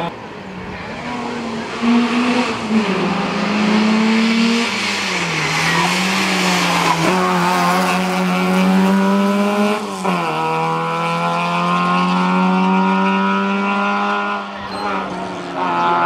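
Rally car engine at hard throttle through a corner. Its note holds and climbs, drops sharply at a gear change about ten seconds in, climbs again, and falls away near the end.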